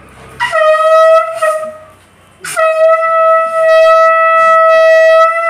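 Conch shell (shankh) blown in two loud, steady blasts, sounded as a ritual call in a Hindu puja. The first is short, about a second and a half. After a brief gap the second is held for over three seconds.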